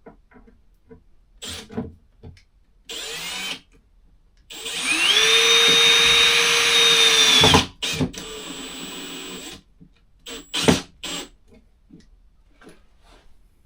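Milwaukee drill driving screws up through the underside of a vanity unit into its wall brackets. It gives a short burst, then a long run that winds up and holds steady for about three seconds, a shorter run, and two quick blips near the end.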